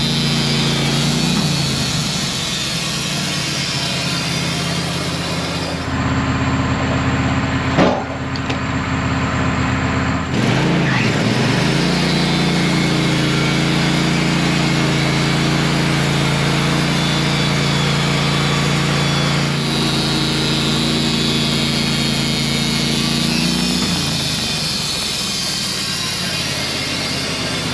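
Wood-Mizer portable band sawmill running, its engine steady with the band blade sawing pine. There is a single knock about eight seconds in and a brief dip in engine pitch a couple of seconds later.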